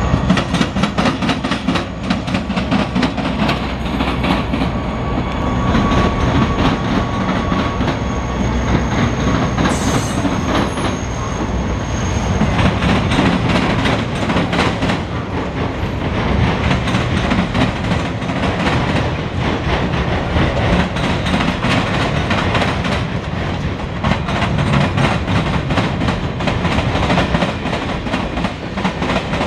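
CSX freight train passing: the diesel locomotive's engine rumble as it goes by, then freight cars rolling past with steady clickety-clack of wheels over the rail joints, the clicking getting busier about halfway through.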